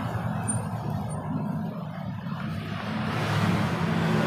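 Steady low hum of a running motor vehicle engine, getting louder near the end.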